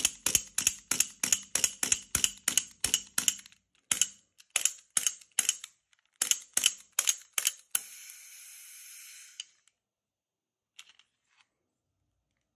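CO2-powered M1911 airsoft pistol firing rapidly, about three shots a second, then slowing to shorter strings of shots. After the last shot, a hiss of escaping CO2 gas lasts about a second and a half, followed by two faint clicks.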